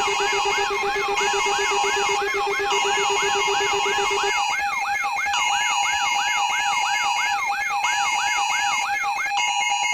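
A dense layer of electronic alarm tones and sirens sounding at once: a fast yelping siren sweeps a little more than twice a second over steady and on-off beeping tones. A low droning tone drops out about four seconds in.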